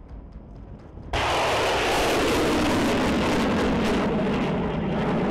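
Stinger missile's rocket motor firing at launch: a loud rushing noise that starts abruptly about a second in and holds steady.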